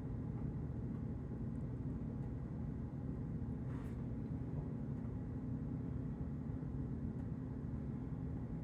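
Steady low background hum, with one faint short click or rustle a little under four seconds in, in keeping with small plastic Lego parts being handled.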